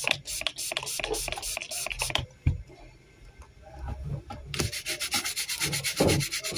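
Scrubbing strokes over a laptop motherboard, cleaning flux-paste residue off a freshly soldered I/O chip: a run of strokes at about four a second for the first two seconds, then a faster, denser run of scrubbing from about halfway through.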